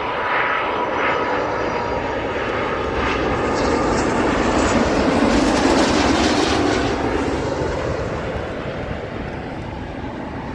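Twin-engine widebody jet airliner passing low on landing approach with gear down. Its jet roar builds to its loudest around the middle and fades toward the end, with a thin steady engine whine near the start.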